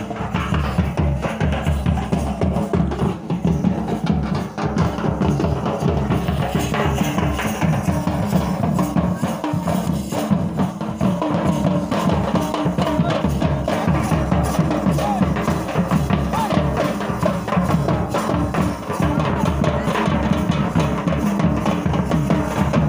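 Band-party drumming: several large double-headed drums beaten in a steady rhythm.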